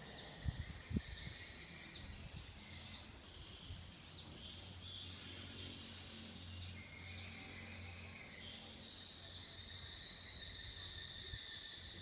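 Swiftlets twittering at a swiftlet nest house: a continuous chatter of short high chirps that grows denser and steadier in the second half. Two low thumps come about half a second and a second in.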